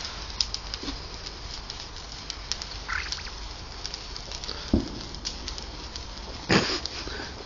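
Lit sparklers fizzing and crackling in many small sharp ticks, with a short louder burst about six and a half seconds in and a dull thud shortly before it.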